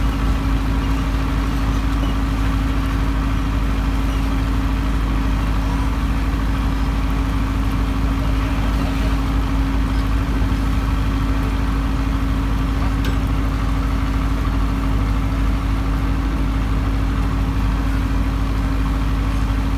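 An engine idling steadily, a constant low drone that doesn't change.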